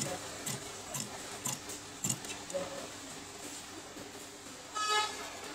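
Large tailor's shears cutting through suiting fabric: a run of crisp snips about half a second apart in the first two seconds, followed by the rustle of the cut cloth being handled. Near the end comes a brief high-pitched squeal, the loudest sound.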